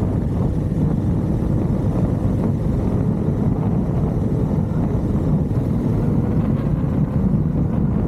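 A motorcycle under way: a steady low rumble of engine and wind on the microphone, with no change in pitch.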